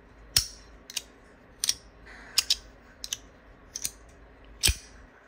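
Compoform Tesseract titanium fidget slider being worked by hand, its sliding blocks clicking sharply into place about eight times, roughly a click every three-quarters of a second, with a quick double click about halfway through.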